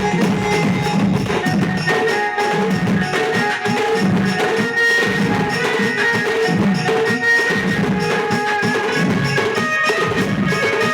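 Music: a dance song with a busy, driving drum beat and a melody over it.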